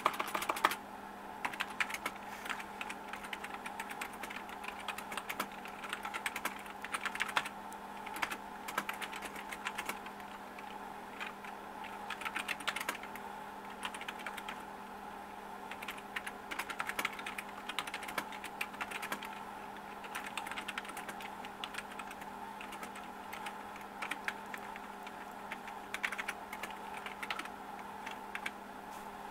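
Typing on a Memorex TS-1000 Spillproof keyboard: keys clicking in quick runs broken by short pauses, over a steady low hum.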